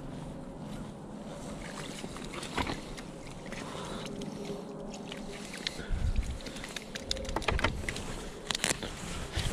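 Wind rumbling on the microphone, turning gustier about six seconds in, with a few light clicks and taps.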